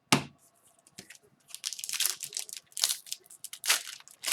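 A sharp tap, then the rapid crinkling and crackling of a foil hockey-card pack wrapper being handled and torn.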